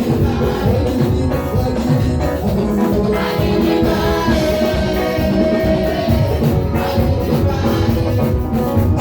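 Upbeat gospel praise music with singing and a steady percussion beat.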